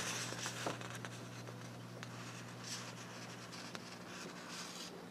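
Faint rustling of printed paper sheets being handled and shifted, with a few light ticks, over a low steady hum.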